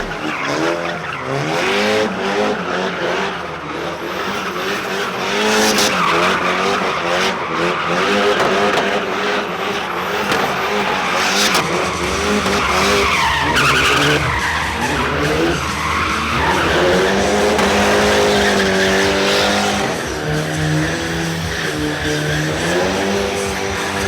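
Drift car engine revving up and down over and over, its pitch rising and falling, while the tyres squeal through burnouts and donuts.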